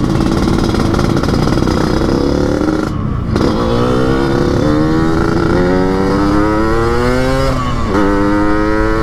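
Yamaha RX-King two-stroke single, bored up to 175 cc, with open air filter and chrome under-belly expansion-chamber exhaust, accelerating under way. Its raspy 'ngorok' exhaust note climbs in pitch and drops back at each upshift, about three times.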